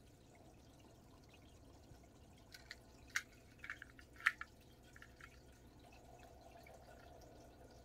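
A few faint, light clicks and taps over quiet room tone as crochet tools are handled: the hook is set down and a tape measure is laid across the crocheted crown. The loudest two come a little after three seconds and a little after four seconds.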